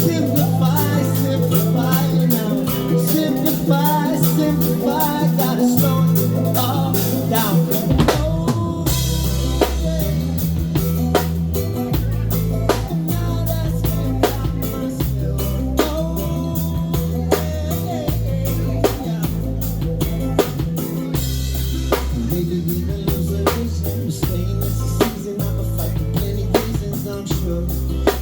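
Live band playing: drum kit with snare and bass drum keeping a steady beat over a bass line, with a wavering melodic lead line in the first several seconds and a change in the arrangement about eight seconds in.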